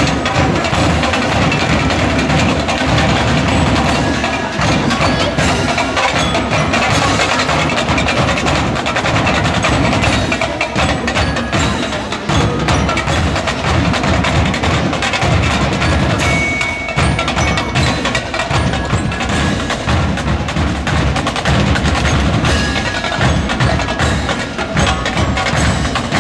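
Drill and drum corps drum line playing a steady, driving marching cadence.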